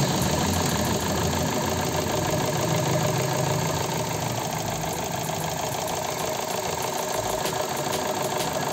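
Chevrolet Cruze four-cylinder petrol engine idling steadily and smoothly on a new ignition coil pack: the misfire on cylinder 3 is cured and it now runs clean instead of rough.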